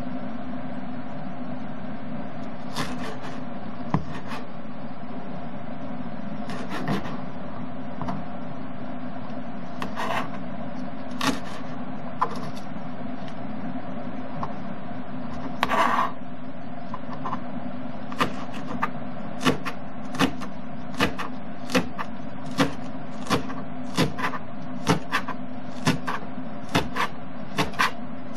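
Kitchen knife chopping garlic chives on a plastic cutting board: a few scattered cuts at first, then steady chopping at about one or two strokes a second through the last third. A steady hum runs underneath throughout.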